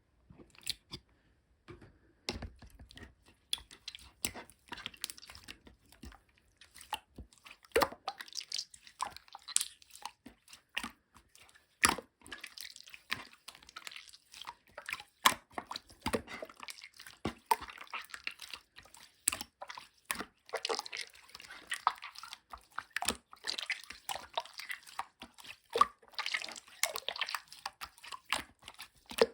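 Clear slime being squeezed and pressed by hand, making dense, irregular wet clicks and squishes, starting about two seconds in.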